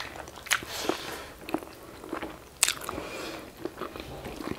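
Close-up eating sounds of rice and pork curry eaten by hand: chewing and mouth smacks with small scattered clicks, and two sharper crunchy bites, one about half a second in and one a little past halfway.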